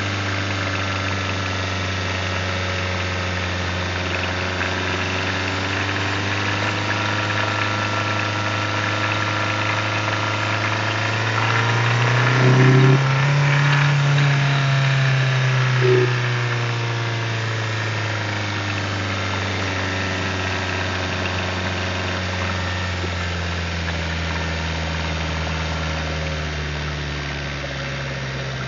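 Hyundai Tucson hybrid's 1.6-litre turbo petrol four-cylinder running steadily. About twelve seconds in its pitch rises under load, with two short louder bursts, then slowly settles back. Under load the engine shows the rattle that the owner says is quieter after the service but still there.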